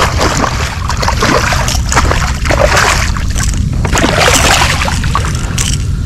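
Hooked red drum thrashing at the water's surface, a run of irregular splashes that ease off near the end, over a steady low rumble.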